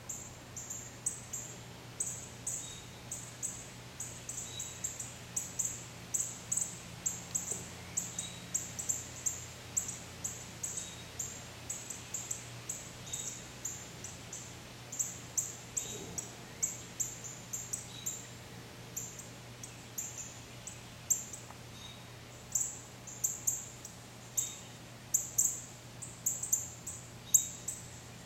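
Yard ambience: short high-pitched chirps repeating irregularly, two or three a second, with occasional fainter short calls at a lower pitch and a low steady hum underneath.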